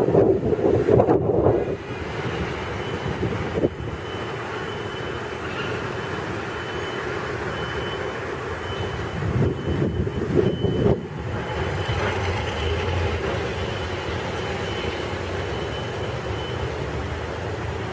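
Subway train (R62A cars) running along an elevated steel viaduct, a steady rumble of wheels on rail, with wind gusting on the microphone near the start and again about ten seconds in. A faint high thin tone comes and goes through the middle.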